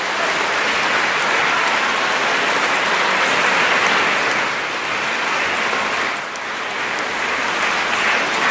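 Audience applauding: steady, dense clapping that dips briefly about six seconds in and then picks up again.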